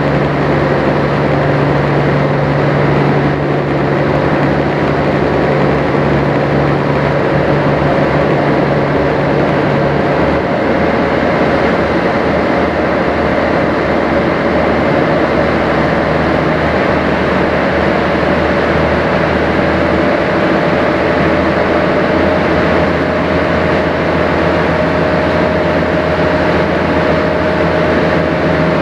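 Sightseeing boat's engine running steadily while the boat is under way, a continuous low hum over a rushing noise. The hum's pitch shifts slightly partway through.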